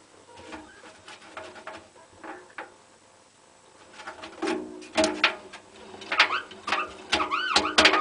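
Drum of a Hotpoint WT960 washing machine squeaking as it is turned by hand: a run of short squeaks, a pause of a second or two, then louder squeaks with rising-and-falling squeals toward the end.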